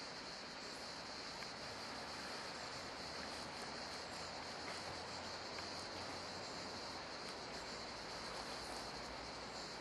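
Faint, steady outdoor ambience by a river: an even hiss with a steady high-pitched buzz over it.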